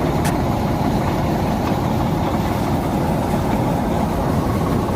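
Eicher 485 tractor's diesel engine running steadily with a low rumble, with a brief click just after the start.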